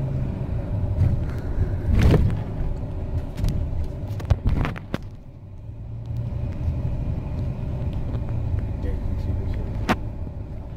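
Tour coach running along a city street, heard from inside the cabin: a steady low engine and road rumble. Louder knocks come about 2 and 4.5 seconds in, and there is a sharp click near the end.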